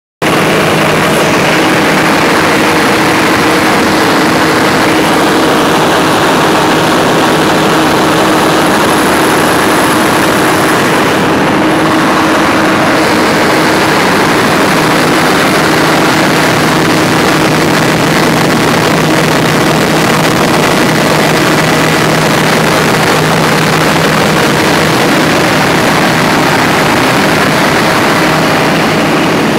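Perkins 4006 six-cylinder diesel generator engine running loud and steady.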